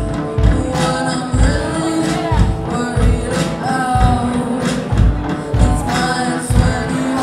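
Live rock band playing: electric guitars and drums with a kick-drum beat about twice a second, and singing over it.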